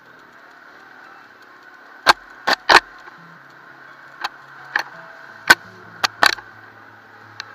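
Sharp knocks and clacks, about nine in irregular clusters, as the camera mount on a Kymco KXR 250 quad jolts over a rutted mud track. Under them runs a faint, muffled engine hum.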